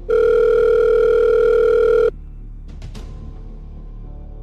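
Telephone ringback tone, the ringing a caller hears on the line: a steady buzzing tone for about two seconds, a pause, then the ring starting again right at the end.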